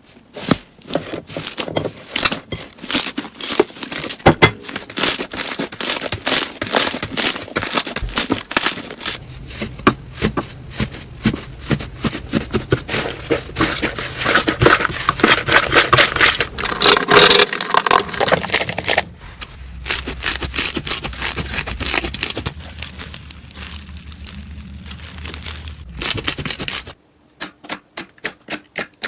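Slime being squeezed and pressed by hands, giving a rapid run of crackling, popping clicks, with a couple of abrupt changes in the sound as one clip gives way to the next.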